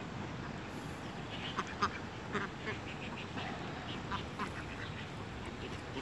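Mallards and white domestic ducks quacking in short calls, a quick cluster about one and a half to two and a half seconds in and a few more around four seconds in, over steady background noise.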